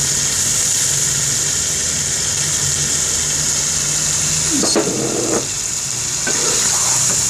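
Pot of meat curry cooking on a gas stove: a steady low hum under a constant high hiss as yogurt is stirred in, with a short higher sound about five seconds in.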